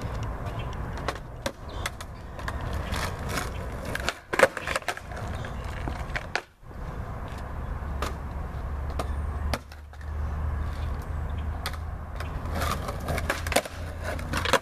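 Skateboard rolling on pavement, its wheels giving a steady low rumble, broken by sharp wooden clacks of the deck popping and landing tricks; the loudest clack comes a little past four seconds in.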